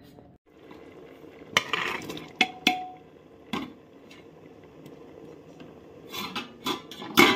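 A series of sharp knocks and clinks of hard objects being handled. Scattered single knocks come in the first few seconds, one of them ringing briefly, then a quicker run of clattering begins about six seconds in and grows loudest near the end.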